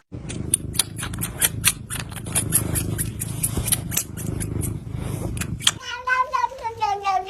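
An irregular run of sharp clicks, about three or four a second, over a low rumble. Near the end a cat starts a long yowl that slides slightly down in pitch.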